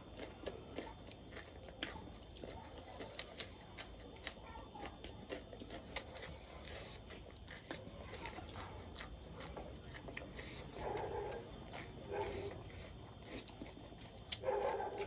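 A person chewing and biting food close to the microphone, with irregular crunches and mouth clicks.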